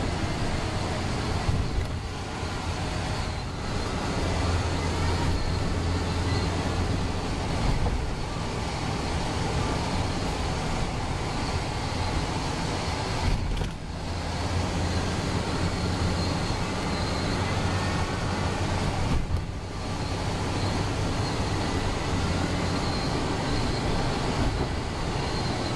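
Steady road and engine noise heard inside a moving bus at speed, with a low hum under it. The noise dips briefly twice.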